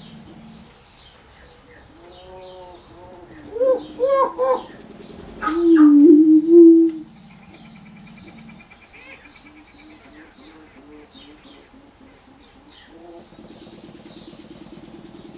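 Male greater prairie chickens displaying: a low, moaning booming call about five and a half seconds in, the loudest sound, follows three short hooting notes around four seconds. Small birds chirp faintly throughout.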